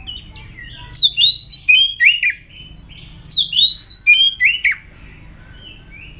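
Oriental magpie-robin singing an aroused, aggressive song: two loud runs of rapid, varied whistled notes sliding up and down, each about a second and a half long, one starting about a second in and one past the three-second mark.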